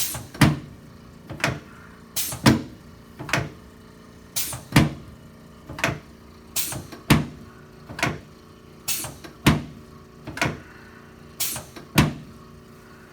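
Chiropractic adjustment thrusts on a patient's back on a treatment table: a run of sharp knocks, roughly one a second, some coming in quick pairs.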